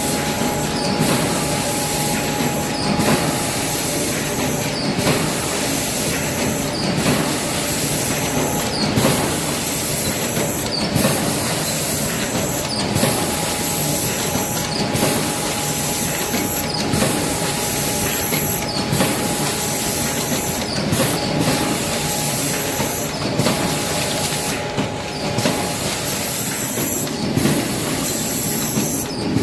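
Automatic packaging machine for Korean chili powder running: a steady mechanical clatter with a high hiss that breaks off about every two seconds as each cycle repeats, over a faint steady whine.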